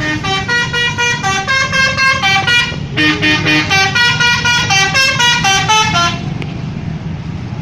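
Bus 'telolet' multi-tone horn playing a fast melody of short stepped notes. It breaks off briefly about three seconds in and stops about six seconds in, leaving the low rumble of the bus engine.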